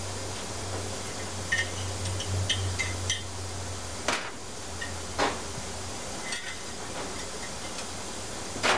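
Small metallic clicks and light clinks as parts are worked off an Evinrude/Johnson 60-degree V6 outboard crankshaft by hand. A few sharper knocks follow, the loudest near the end.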